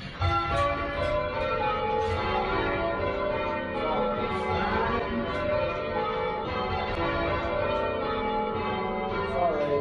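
A band of church tower bells rung by hand in change ringing, the bells striking one after another in quick succession, their tones overlapping.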